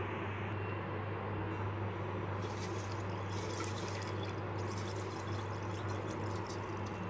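Sugar pouring into a pot of guava juice, a hiss that comes in patches from about two and a half seconds in, over a steady low hum.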